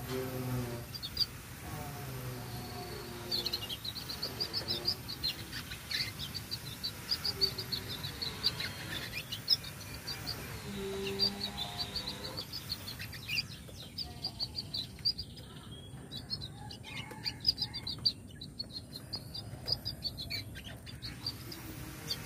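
Canary giving short, high chirping call notes in quick runs, repeated throughout.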